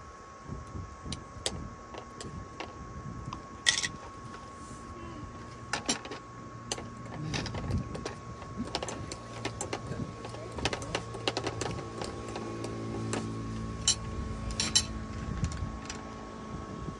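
Cooked clam shells being prised open by hand, with irregular small clicks and clinks of shell, spoon and plate. A low mechanical drone comes in about five seconds in and fades near the end, over a faint steady hum.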